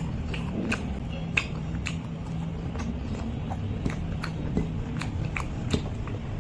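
Close-miked eating sounds: chewing with many short, wet clicks and smacks, along with fingers squishing rice and curry gravy on a plate.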